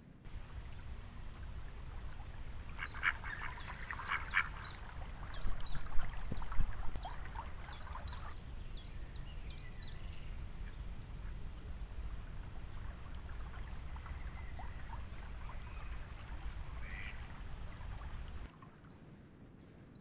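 Ducks quacking, a quick series of calls about three to four seconds in, followed by a run of short high bird chirps, all over a steady low rumble of wind that cuts off near the end.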